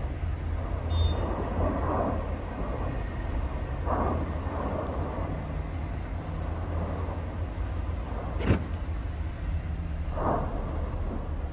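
Cumbre Vieja volcano erupting: a steady low rumble from the lava-fountaining vents, swelling briefly several times. A single sharp crack about eight and a half seconds in is the loudest sound.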